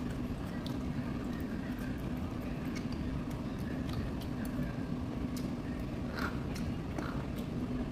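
Eating sounds: faint clicks of a metal spoon and short sips of soup broth, over a steady low hum.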